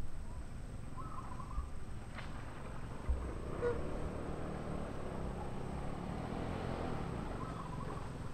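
Outdoor ambience: a steady low rumble, with a faint engine hum that swells and fades in the middle, and two brief high chirps, one about a second in and one near the end.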